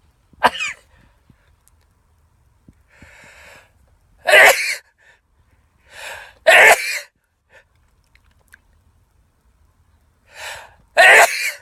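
A man sneezing loudly three times: about four seconds in, about six and a half seconds in, and near the end. Each sneeze follows a quick in-breath.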